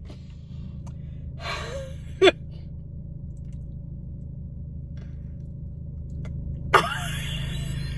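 Steady low hum of an idling car engine, heard from inside the cabin. A short breathy gasp comes a couple of seconds in, then biting and chewing into crisp fried chicken near the end.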